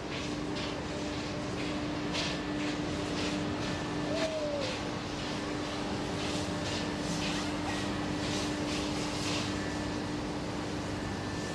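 NSW 59 class 2-8-2 steam locomotive 5910 working slowly, its exhaust chuffing about twice a second, with the hiss of its open cylinder drain cocks.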